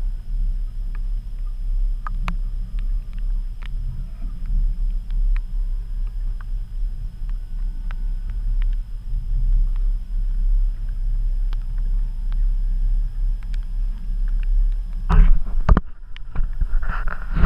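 Boat's outboard motor idling: a steady low rumble with a few faint ticks. A short burst of rustling and knocks comes near the end.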